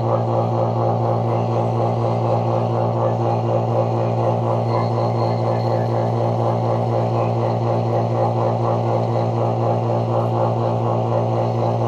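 Small electric motor-driven pump running steadily, a loud low hum with a fast, even pulsing.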